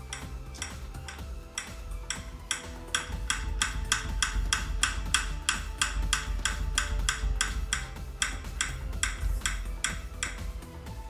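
Rapid, fairly even metallic clicking, about four or five a second, as the piston of a Kia Picanto rear brake caliper held in a vise is turned out by hand. Background music plays underneath.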